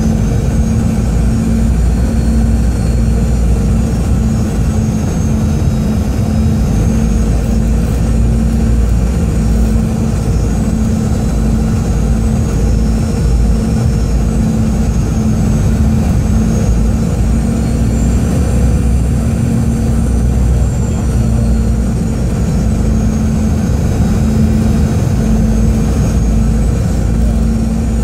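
Cabin noise of a Boeing 717-200 on final approach with flaps extended: a steady low rumble of airflow and the rear-mounted Rolls-Royce BR715 turbofans, with a steady hum and high engine whines that drift up and down in pitch a few times as thrust is adjusted.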